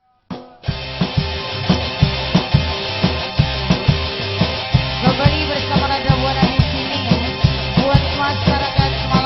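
Live band music with a steady drum beat and bass, starting about half a second in; a melody line comes in around five seconds.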